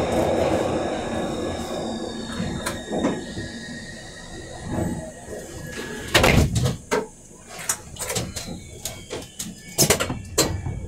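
Subway train in its tunnel, its running noise dying away over the first few seconds as it comes to stand. Sharp metallic clunks and clicks follow about six seconds in and again near the end, heard from inside the car.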